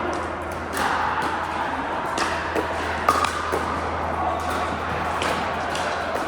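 Pickleball paddles striking the ball during play: a series of sharp pops at uneven spacing.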